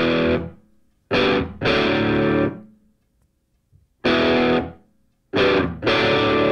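Background music: distorted electric guitar chords struck in short, separate blasts, each held briefly and then cut off or fading, with silent gaps between them.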